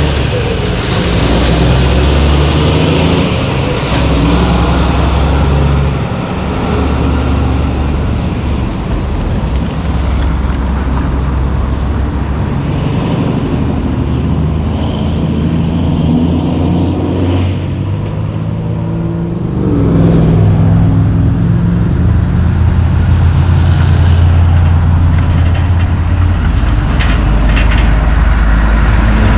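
Heavy diesel trucks driving past on a town road, engines running under load with tyre and traffic noise. Partway through, one engine note rises as a truck accelerates.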